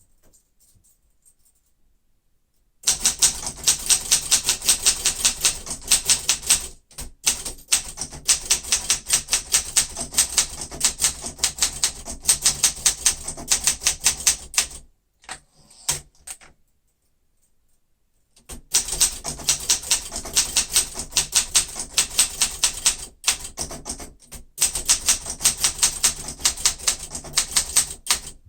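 1972 Olympia SM9 manual typewriter being typed on at a fast, steady pace: a rapid run of keystroke clacks. It starts after a few quiet seconds and comes in two long runs, with a pause of about three seconds in the middle.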